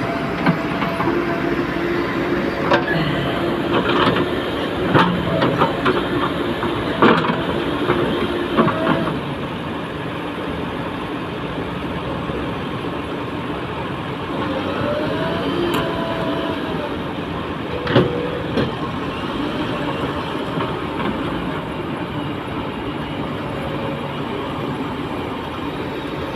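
JCB backhoe loader's diesel engine running under load, with metal clanks from the bucket and arm, several in the first nine seconds and one more about eighteen seconds in.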